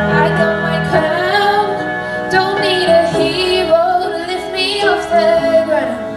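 Music: a female voice singing a gliding melody over a steady instrumental backing, part of a pop song.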